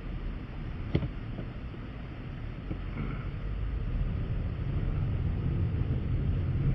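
Vehicle running with a steady low rumble that slowly grows louder, and a single sharp click about a second in.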